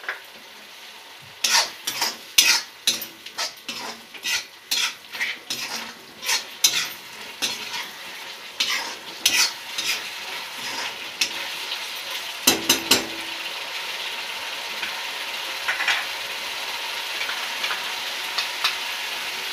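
A spatula stirring vegetables in sauce in a wok, clicking and scraping against the pan several times a second, with one louder knock about two-thirds of the way in. Under it the sauce sizzles, growing into a steady, louder sizzle once the stirring stops.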